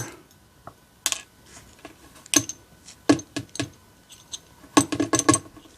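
Small metal pins and springs from a camlock being handled and set down during disassembly, giving sharp light clicks: one about a second in, another near two and a half seconds, three in quick succession around three seconds, and a rapid cluster near five seconds.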